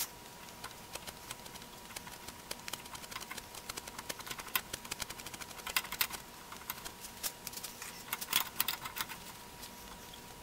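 Irregular small metallic clicks and light scraping as the threaded steel shaft of an old C-clamp is screwed through the threads of the clamp frame, with a few denser bursts of clicking.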